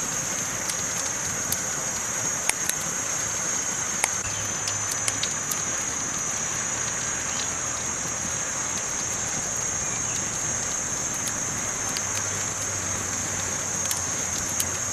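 Campfire burning, crackling steadily with sharp pops scattered irregularly over a constant hiss that carries a strong high-pitched steady component.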